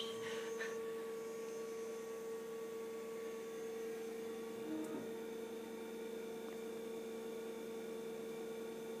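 An IBM PC XT running just after being switched on, giving a steady electrical hum.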